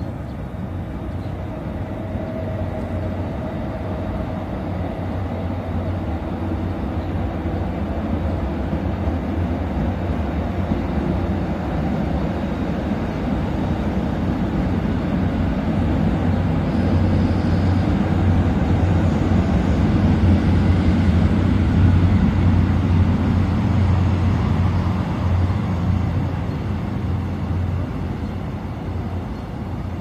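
A train approaching: a low, steady rumble that grows gradually louder for about twenty seconds, peaks, then begins to ease off near the end.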